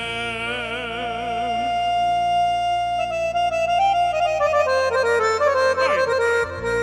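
Live Albanian song with electronic keyboard backing: a singer holds the end of a line with wide vibrato, then the keyboard plays an instrumental fill that steps down in pitch over a steady bass.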